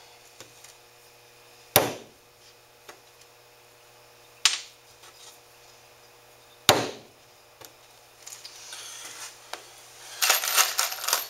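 Three single hammer blows, a few seconds apart, driving 6-penny nails through the beaver hide into the plywood board. Near the end, a brief clatter of loose nails clinking together.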